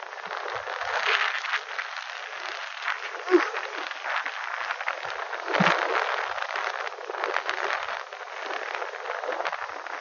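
Strong wind blowing across the microphone: a rushing, crackling noise that swells and drops in gusts, strongest about five and a half seconds in.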